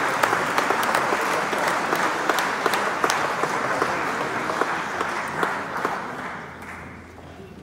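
Audience applauding, a dense patter of many hands clapping that thins out and fades away over the last couple of seconds.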